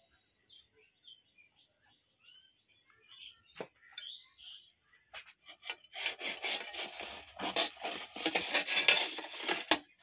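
Faint bird chirps, then from about six seconds in a few seconds of loud rubbing and scraping as ceramic tiles and their cardboard boxes are handled.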